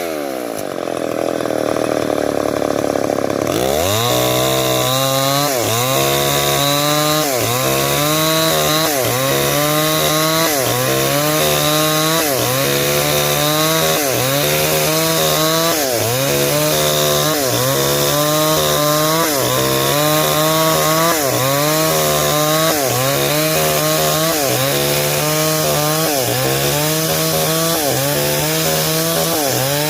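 Stihl 070, a large two-stroke chainsaw, running under load while cutting timber lengthwise into beams. Its revs sag in the first seconds and pick up again about four seconds in, then dip and recover in an even rhythm about every second and a half.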